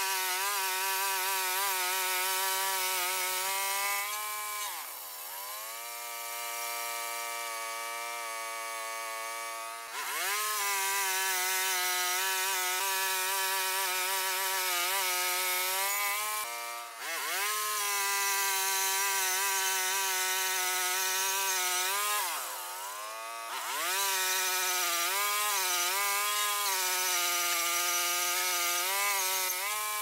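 Small gas engine of a push-through band sawmill running at high speed while the blade cuts through the log, its pitch sagging and picking back up a few times as the cut loads it.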